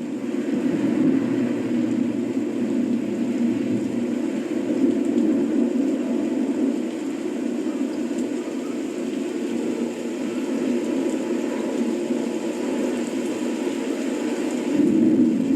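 A steady low rumbling noise with no clear pitch, swelling slightly near the end.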